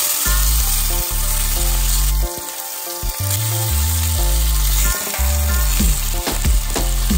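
Steak frying in foaming butter in a cast-iron skillet, a steady sizzle, with background music underneath.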